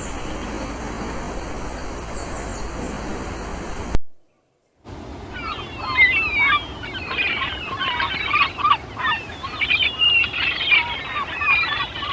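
A steady, even noise for about four seconds, then a brief break and a dense chorus of many birds chirping and chattering, their calls overlapping and gliding quickly up and down.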